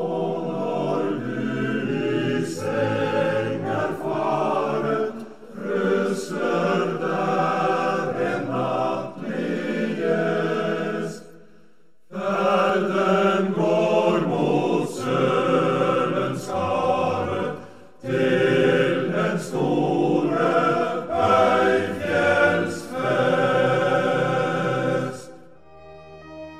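Background music of a choir singing in long phrases, breaking off briefly twice, about twelve and eighteen seconds in.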